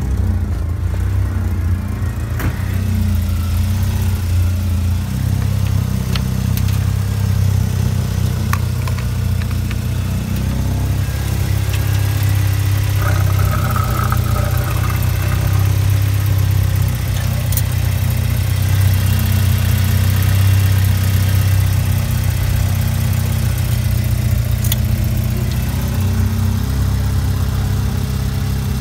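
Opel Omega B's 2.0-litre X20SE inline-four petrol engine idling steadily, with its oil filler cap removed.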